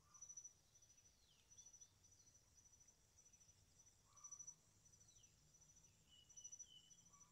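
Faint insect chirping: a high, rapid pulsing trill repeating in short bursts, roughly twice a second. A few faint falling bird whistles come over it.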